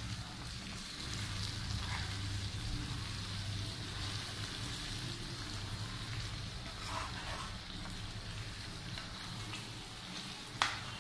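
Liver and skin fry cooking in oil and masala in a pan, a steady sizzle. One sharp knock near the end.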